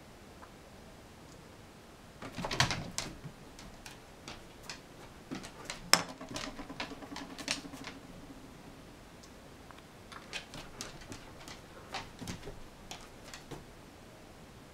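Kitten playing on a wooden tabletop: scattered light taps and clicks of paws, claws and a small toy ball, with a louder scuffle about two and a half seconds in and a sharp knock around six seconds.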